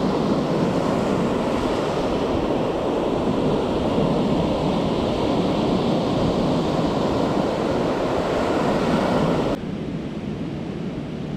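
Surf breaking and washing onto a pebble beach, a steady loud rushing; about ten seconds in it drops suddenly to a quieter rush.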